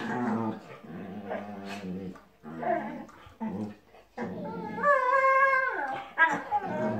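Ibizan hounds play-fighting, growling in low pitched stretches, with one drawn-out high whining call about five seconds in that rises, holds and then falls.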